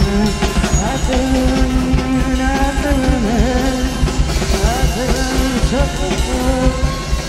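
Live band music: a drum kit played under electronics, with a melody line that slides and wavers in pitch.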